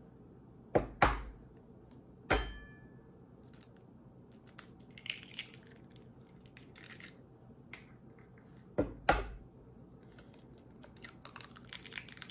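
Two raw eggs being cracked open: sharp taps of the shell on a hard edge, a brief ring after one, then the faint crackle of shell being pulled apart. The first egg is tapped about a second in; the second gets two taps near nine seconds and is broken open near the end.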